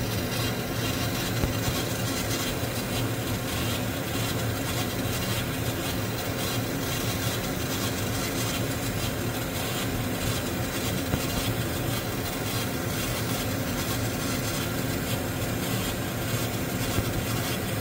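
80 W MOPA fiber laser engraving brass: a steady rasping buzz with a constant low hum underneath.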